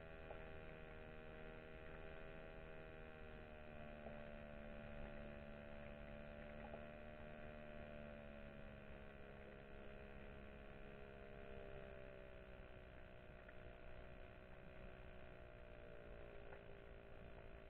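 Faint, steady hum made of several tones, some drifting slowly up and down in pitch, with a few faint ticks, picked up by an underwater camera on the seabed.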